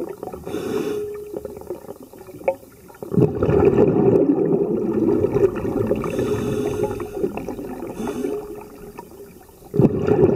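Scuba diver breathing underwater through a regulator. A long rumbling gush of exhaled bubbles starts about three seconds in and lasts several seconds, and another exhalation begins near the end.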